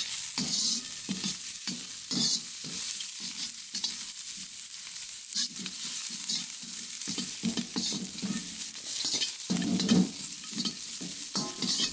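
Metal ladle scraping and tossing vegetable scraps in hot oil around a Yamada carbon steel wok, in irregular repeated strokes over a steady sizzle: the oil-rubbing stage of seasoning a new wok.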